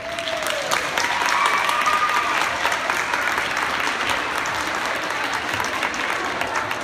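Audience applauding, with many hands clapping at once. It starts abruptly and goes on steadily.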